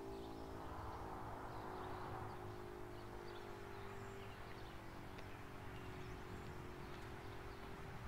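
Faint tail of an ACA Screamer S-2 rotating siren's tone, a few steady pitches that partly fade out about halfway through, under small bird chirps.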